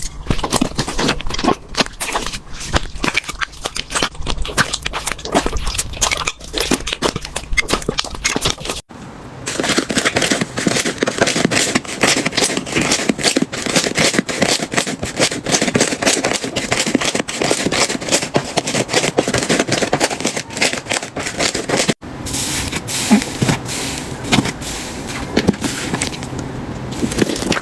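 Slime being pressed and stretched, making a dense run of small crackles and pops. The sound changes abruptly twice, about nine and twenty-two seconds in, as one slime clip gives way to the next.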